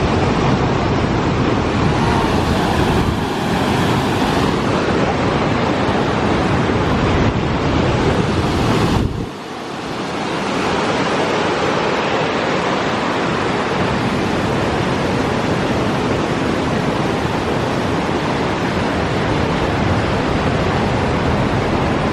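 Loud, steady rush of water from Tahquamenon's lower falls; about nine seconds in it drops away for a moment, as at a cut, and comes back.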